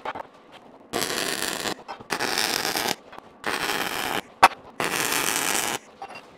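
MIG welder arc crackling on steel in four bursts of about a second each, separated by short pauses, as weld passes are laid on angle-iron and plate test pieces. A single sharp click falls between the third and fourth bursts.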